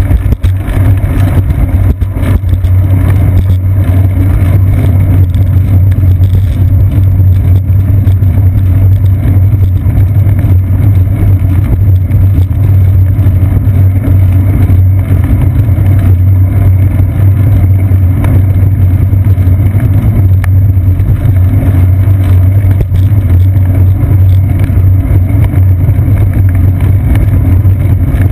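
Steady, loud low rumble of wind and road vibration picked up by a seat-post-mounted GoPro Hero 2 while a bicycle rolls along a paved path.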